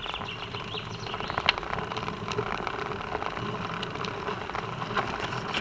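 Bicycle rolling along an asphalt path: steady tyre and road noise with irregular rattling clicks, the loudest about a second and a half in.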